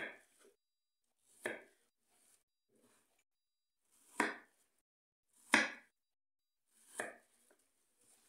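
Kitchen knife cutting a peeled apple into small pieces on a wooden cutting board: five separate cuts, about one to two and a half seconds apart, each ending in a sharp tap of the blade on the board.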